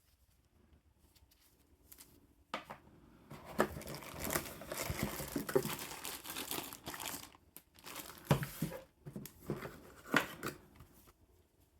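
Packaging being crinkled and torn as it is handled, with dense crackling that begins about two and a half seconds in, pauses briefly near the middle and dies away near the end.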